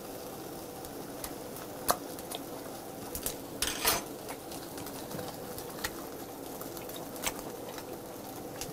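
Freshwater eel sizzling steadily on a tabletop grill, overlaid by close-miked chewing of butter-grilled abalone. A few sharp clicks and a short, louder noisy burst come just under four seconds in.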